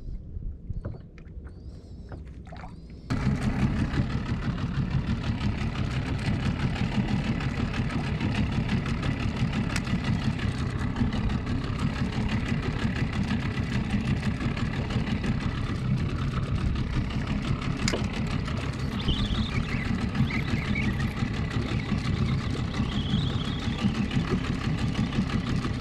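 Small boat outboard motor running steadily with a low, even drone; it comes in abruptly about three seconds in after a few faint clicks.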